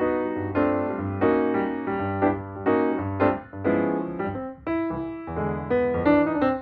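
Background music on a piano-like keyboard: a melody of struck notes over a repeating bass line.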